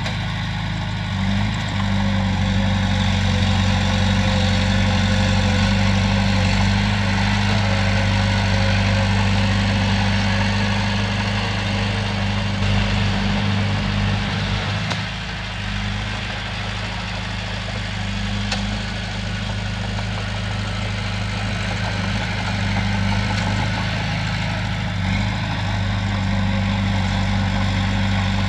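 Komatsu bulldozer's diesel engine running steadily, a continuous low drone with a slight dip about halfway through.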